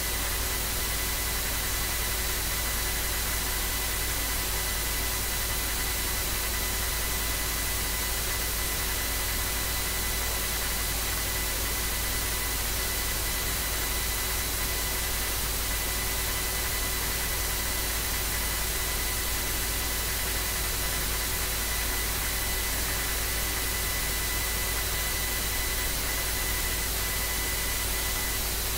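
Steady hiss with a low hum and a few thin, steady high tones, with no other events: electrical noise picked up by the screen recording's microphone input.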